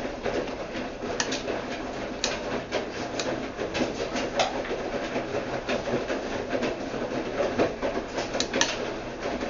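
Whirlpool washing machine running: a steady churning noise with irregular clicks and knocks.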